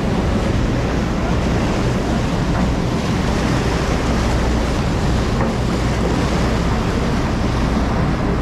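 Steady wind rushing over the microphone and sea noise on the open deck of a large charter fishing boat, over a low, even drone of the boat's machinery.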